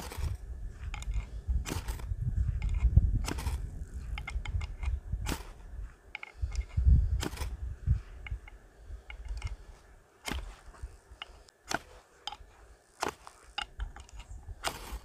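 Ferrocerium fire steel scraped through the sharp, laser-cut anvil notch of a Buck Compadre axe's 5160 steel head: a series of short, irregular scraping strikes that throw sparks into tinder. A low rumble runs under the first half.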